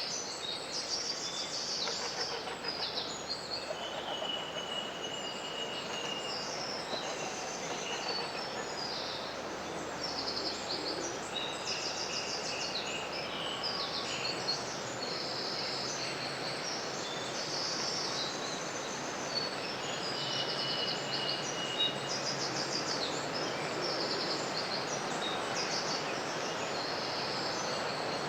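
Several woodland songbirds singing short, repeated trilled phrases and a few held whistled notes, over a steady rushing background.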